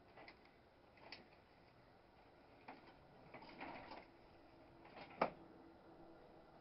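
Near silence with a few faint knocks and rattles, the loudest about five seconds in, as a toddler pushes and tugs at a high-wheel weed trimmer that is stuck against the shed door.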